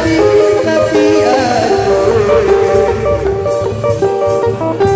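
Music: a melody of held notes stepping up and down over a steady low beat.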